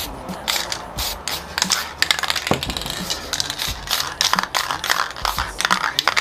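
Aerosol spray paint hissing in many short bursts, with knocks and taps as the phone and cans are handled on the paper.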